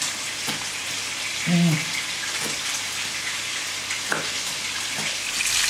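Kitchen knife chopping fresh parsley on a wooden cutting board: a few light taps over a steady hiss.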